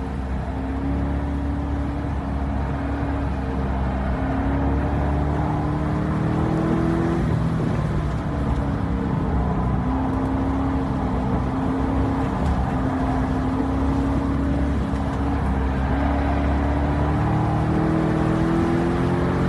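2012 Corvette Grand Sport's 6.2-litre V8 pulling hard on track, its pitch climbing steadily, dropping sharply about seven seconds in, then climbing again.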